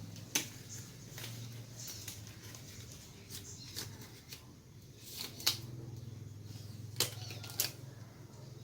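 Medical gloves being pulled onto the hands: soft rustling with several sharp snaps and clicks at uneven intervals.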